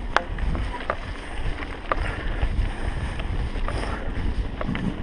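Mountain bike rolling fast down a rough dirt trail, with wind buffeting the camera microphone as a steady low rumble and frequent sharp clicks and rattles from the bike jolting over the bumpy ground.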